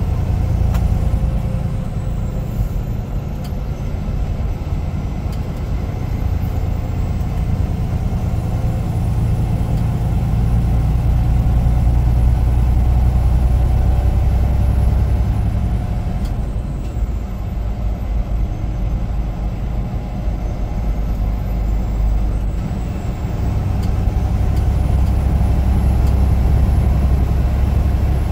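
Semi-truck's diesel engine running with a steady low drone that swells and eases a few times, its pitch and loudness shifting with the engine's load.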